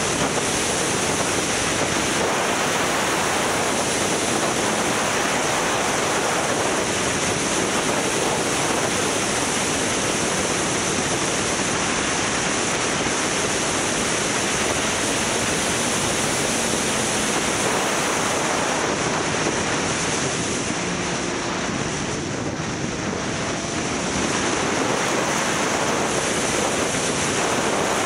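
Wind rushing over the microphone of a motorcycle on the move, a steady noise with road and engine sound mixed in, easing slightly about twenty seconds in.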